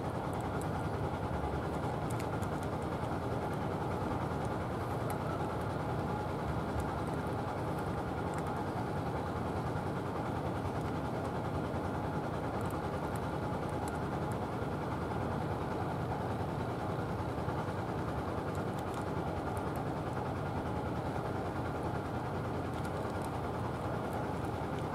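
Steady low rumble of outdoor background noise, unchanging throughout, with faint scattered ticks over it.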